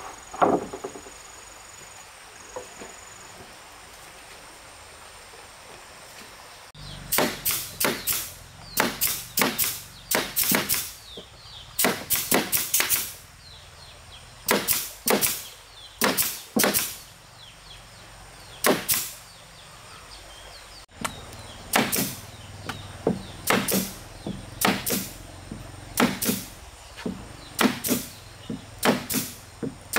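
Hand tool working wood: a single sharp knock at the start, then from about seven seconds in, repeated short strokes in uneven runs of one to four, with brief pauses between runs.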